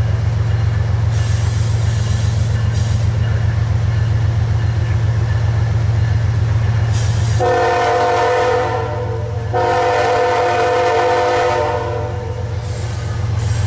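Diesel freight locomotive pulling upgrade under heavy throttle, its engine rumbling steadily. About seven seconds in, its air horn sounds two long blasts, the second longer than the first.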